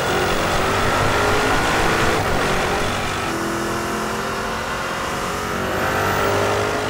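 Porsche Cayenne Turbo GT's twin-turbo 4.0-litre V8 under acceleration, heard through its sport exhaust. The engine note climbs steadily, breaks off about two seconds in, then climbs again until near the end.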